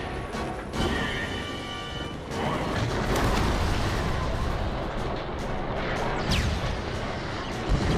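Action-film soundtrack: orchestral score, then from about two seconds in an explosion with crashing debris and rumbling blasts that swamp the music. A short falling whistle cuts through near the end.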